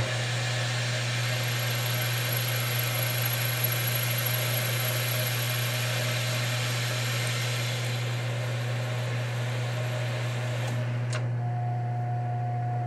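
Manual lathe running with a steady hum while a chamfer tool cuts a spinning aluminum part, a steady hissing cut that stops about eleven seconds in with a click. A faint steady whine follows near the end.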